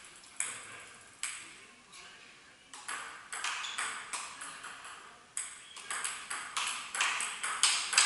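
Table tennis ball clicking off the bats and table in a rally: a few scattered hits at first, then from about three seconds in a steady exchange of about three hits a second, each with a short echo.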